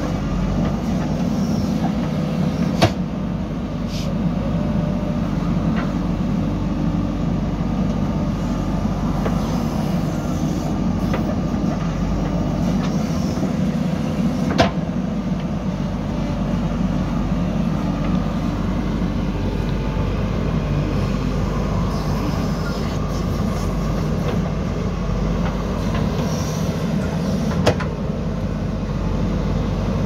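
JCB 3DX backhoe loader's diesel engine running steadily under load while the backhoe digs soil and swings it over to a tipper truck. Three sharp knocks stand out, spaced well apart.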